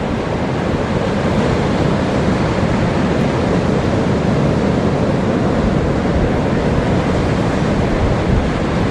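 Ocean surf breaking and washing up the beach in a steady, loud rush.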